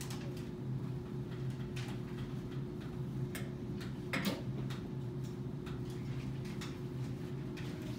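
Room tone: a steady low electrical hum with scattered faint clicks and taps, the most distinct about four seconds in.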